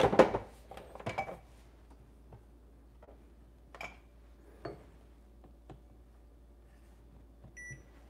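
A few light clicks and clinks as a small glass cup is set on a coffee scale under the espresso machine, then a short electronic beep near the end.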